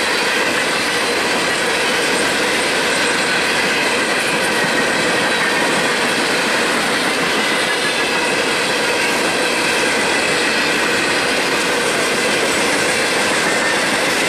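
A long string of empty steel-wheeled coal gondolas (topgons) rolling past, wheels running on the rails with a steady, unbroken noise and faint high ringing tones.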